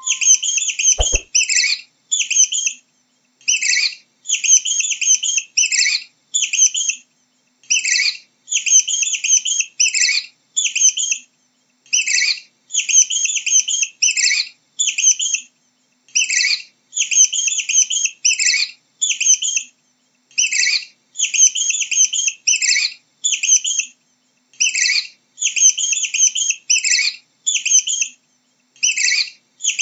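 Mouse squeaking: rapid high-pitched chirping squeaks in clusters a second or two long, with short gaps between them, the pattern repeating over and over.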